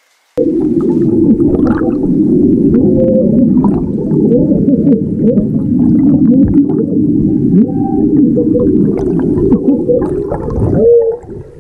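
Gas bubbles from an underwater geyser streaming up from the seabed, heard from underwater: a loud, continuous low bubbling and gurgling that starts suddenly just under half a second in and dips briefly near the end.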